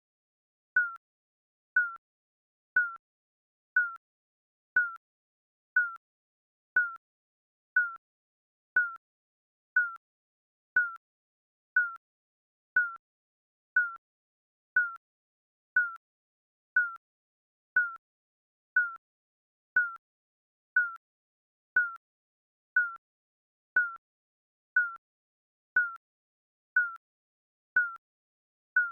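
Digital countdown timer beeping once a second: a short, high electronic beep with a slight downward slide, with silence between beeps.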